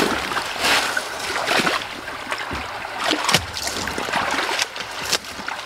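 Water running and splashing in a road culvert, with irregular rustles and knocks as the camera is handled.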